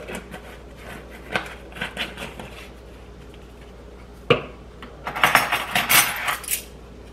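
Metal kitchen utensils clinking and clattering as they are handled: a few light clicks, a sharp knock about four seconds in, then a quick run of clatter lasting about a second and a half.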